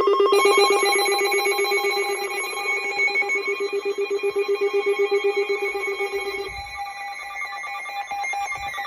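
Electronic emergency alert tones sounding: a loud, rapidly trilling tone stops about six and a half seconds in, with higher steady tones layered over it, and a falling glide begins near the end.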